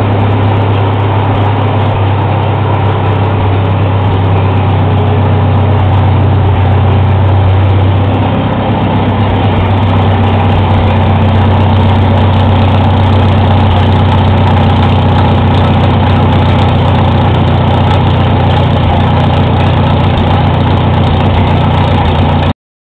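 1949 Farmall H tractor's four-cylinder gasoline engine running steadily at idle, with a brief dip in speed about eight seconds in. It runs smoothly on its newly timed magneto and rebuilt carburettor.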